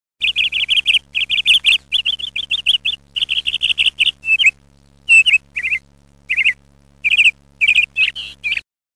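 Small bird chirping in quick runs of high chirps, several to a second. The runs are continuous at first, then come in shorter bouts with pauses, over a faint steady hum. It starts and stops abruptly.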